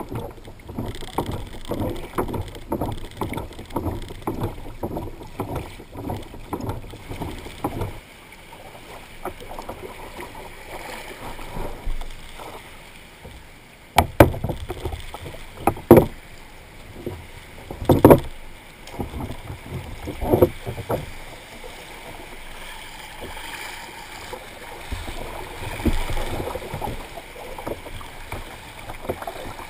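Water splashing and sloshing around a plastic sit-on-top kayak, in an even rhythm at first, then several sharp, loud knocks a second or two apart around the middle, followed by softer lapping water.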